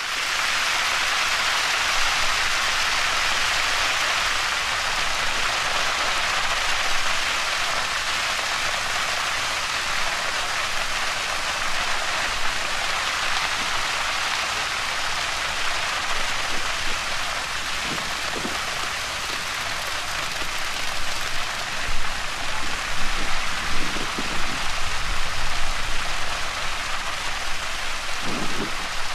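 A field of tall cane burning: a dense, steady crackle of fire. In the last third it comes in louder, uneven surges with some low rumbling.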